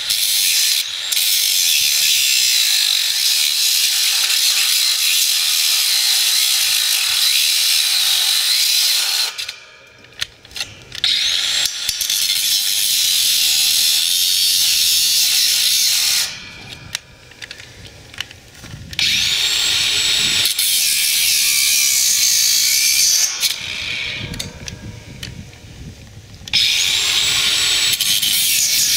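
Ryobi angle grinder with a cut-off disc cutting through a rusty steel rod, a steady high-pitched whine and grinding. It stops three times, about ten, seventeen and twenty-four seconds in, and the motor rises back up to speed each time it restarts.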